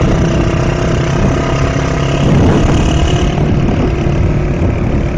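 Small motorcycle engine running at a steady speed under a loud rushing of wind.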